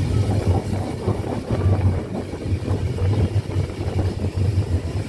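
Steam tank engine hauling a train, heard from inside a carriage: a steady low rumble with an uneven pulse.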